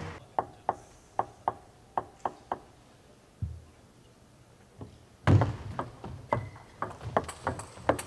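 Table tennis ball bouncing in quick clicks, about three a second, as a player readies to serve. About five seconds in comes a loud thud as play starts, followed by a rally of sharp ball hits on bat and table every third to half second.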